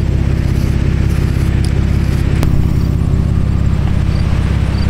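An engine idling: a steady low rumble with a fast, even pulse.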